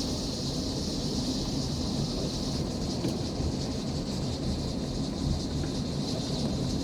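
Outdoor ambience: wind rumbling on the microphone, with a steady high hiss above it.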